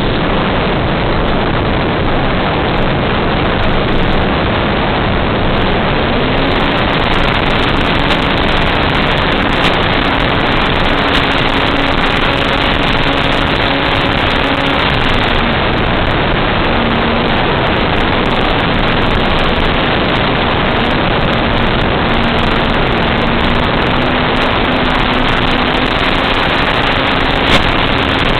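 RC airplane's propeller and motor heard through its onboard FPV camera microphone: a loud, steady hiss with a faint motor tone that steps up in pitch, drops back and slowly rises again as the throttle changes.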